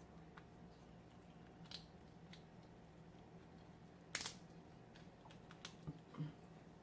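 Quiet eating sounds from a fried lobster tail: faint clicks and mouth noises, with one short, loud crunchy bite about four seconds in and two smaller ones near the end.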